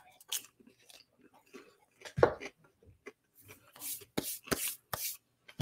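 Popcorn being chewed close to a microphone: scattered short crunches and mouth sounds, a short low sound about two seconds in, and a run of sharper crackles near the end.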